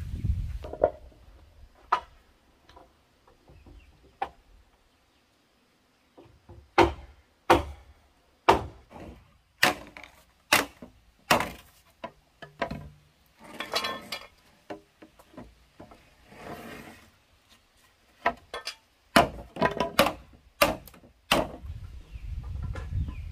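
Chopping with a blade: a series of sharp strikes, at first about one a second, later in quick clusters.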